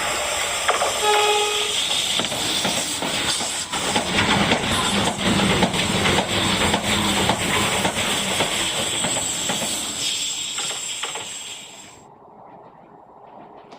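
Renfe train running past on the track, its wheels clacking steadily over the rails with a high thin whine above. A short pitched tone sounds about a second in. The noise drops off sharply about twelve seconds in.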